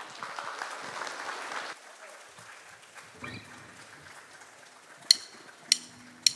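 Brief audience applause that dies away after a couple of seconds. Near the end come three sharp, evenly spaced clicks: the drummer's sticks counting the band in.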